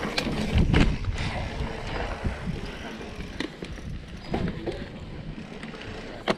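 Mountain bike rolling over a dirt trail: tyre rumble with irregular rattles and knocks from the bike, and wind buffeting the microphone. A sharp knock comes near the end.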